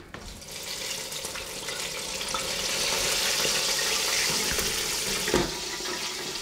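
Hot oil in a T-fal FR8000 deep fryer sizzling and bubbling around a piece of chicken lowered back in to finish cooking. The sizzle builds over the first few seconds and holds, with a single knock about five seconds in.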